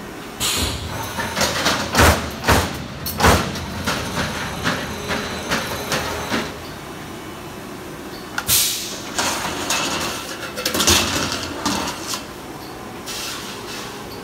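Workshop noise: a run of irregular knocks and clanks, the loudest about two to three seconds in, then bursts of hissing about eight and eleven seconds in.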